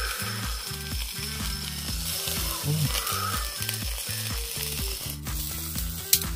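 Chicken cartilage sizzling on a wire grill over a charcoal shichirin, a steady hiss with crackle, over background music with a regular bass beat. A couple of sharp clicks come near the end.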